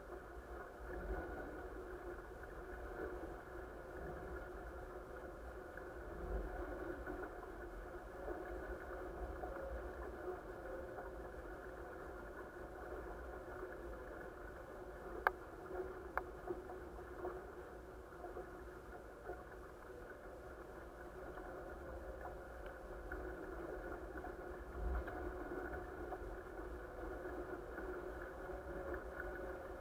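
A-Class catamaran sailing: a muffled rush of water along the hull with a steady hum, and two sharp clicks about halfway through.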